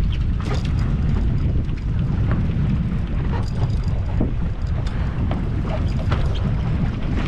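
Wind buffeting the microphone on a boat at sea, a steady low rumble, with a few faint ticks and knocks.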